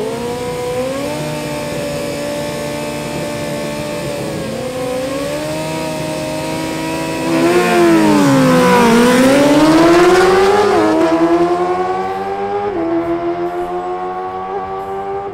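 Two Suzuki GSX-R 600 inline-four sport bikes revving up and holding high revs on the drag-strip start line. After about seven seconds the engines get louder, dip in pitch at the launch, then climb hard through the gears, the pitch dropping sharply at each upshift.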